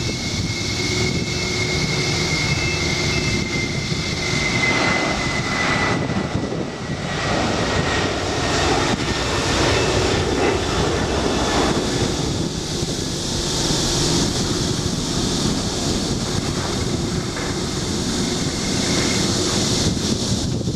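Jet airliner engines heard as the aircraft passes: a steady rushing noise with a high whine that slowly falls in pitch over the first several seconds.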